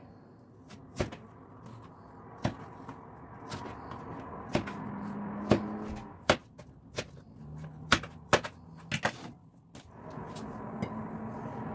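Irregular knocks and clicks of kitchen prep, about one a second: a blade cutting crinkle-cut potato pieces on a plastic cutting board and a utensil tapping a glass bowl, over a faint steady background.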